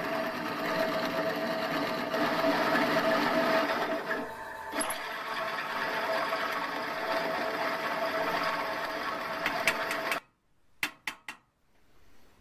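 Pillar drill running and drilling holes through metal blocks held in a vise, its drive belts slipping. The drill runs with a steady tone that dips briefly about four seconds in. It cuts off suddenly about ten seconds in, followed by a few sharp clicks.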